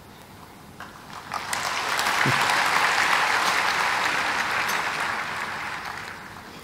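Audience applauding. The clapping starts about a second in, swells, then slowly dies away.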